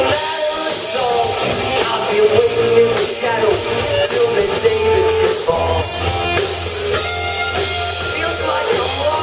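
Live rock band playing: a man singing a melody with long held notes over electric guitars, bass guitar, keyboard and drum kit. The bass line gets fuller about halfway through.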